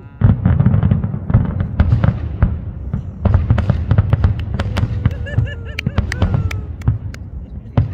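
Fireworks display: rapid, overlapping bangs and crackling bursts over a continuous low rumble of reports.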